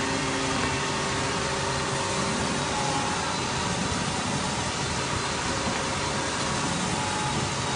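Hand-pressing belt sander running steadily, giving a constant noisy hum from the long sanding belt and its motor while the pressure pad is worked along the belt over wooden panels.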